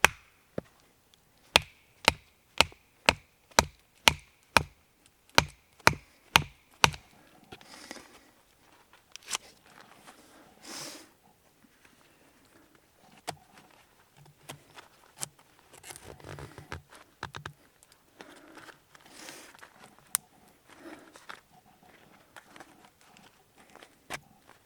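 Wood being chopped: about a dozen sharp strikes, roughly two a second, each with a brief ring, over the first seven seconds. Then quieter scattered knocks and rustling.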